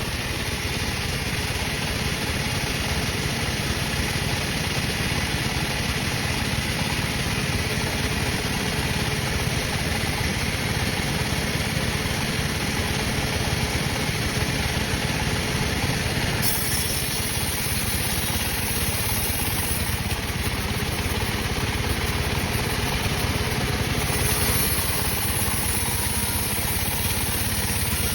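Sawmill machinery running steadily with an engine-like drone, while teak is being milled. A higher hiss comes in about two-thirds of the way through, drops away, and returns near the end.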